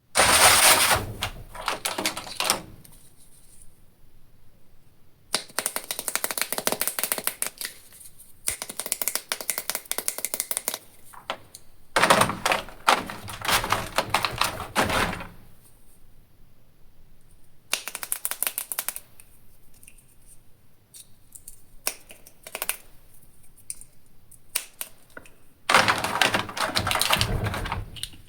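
Plastic toy packaging being handled and opened: bursts of rapid crinkling and clicking, each lasting one to three seconds, with quieter pauses between them.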